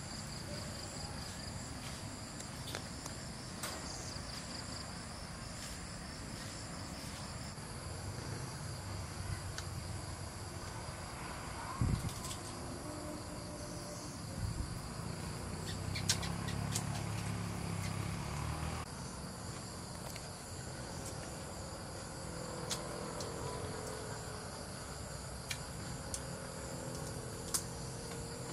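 Crickets and other night insects chirring steadily. A few small clicks and one short thump about twelve seconds in stand out over them.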